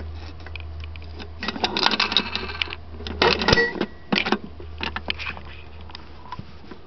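Coin mechanism of a 1940s Victor wooden gumball machine being worked with a nickel: two bursts of metallic clicking and clattering, the second ending in a sharp knock, then scattered lighter clicks as it vends a gumball.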